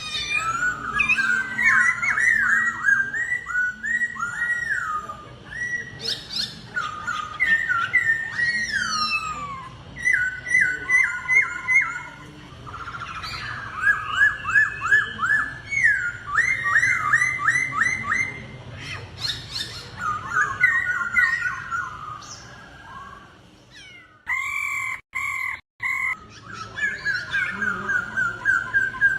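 Laughingthrush singing a loud, fast song of clear whistled notes, each phrase a quick run of repeated rising and falling notes, broken by short pauses, with a brief break a little before the end. This is the driven, contest-style song of a cage-kept laughingthrush.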